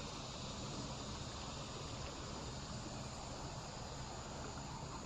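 Steady outdoor background hiss at a creek, even throughout with no distinct events.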